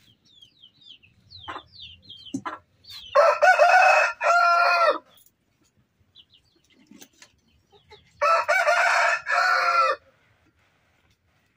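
A rooster crowing twice: two loud, drawn-out crows about two seconds each, the first about three seconds in and the second about eight seconds in. Short faint chirps come before the first crow.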